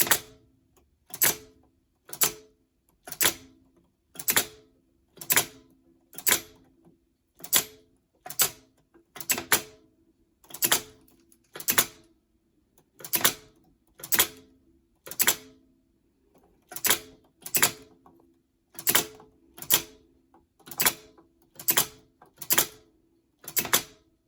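1930s Teletype Wheatstone perforator punching paper tape: each key press fires its 100-volt DC solenoid with a sharp clack as it punches and feeds the tape. The clacks come at an uneven pace of about one a second, sometimes two in quick succession, each with a brief ringing tone after it.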